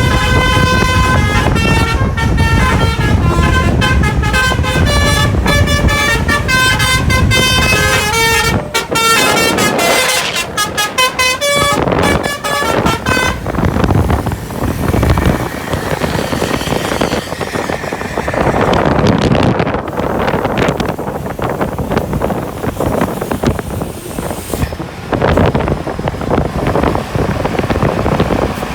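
A Basuri telolet bus horn playing a quick tune of changing notes for about thirteen seconds. It then stops, leaving vehicle and street noise.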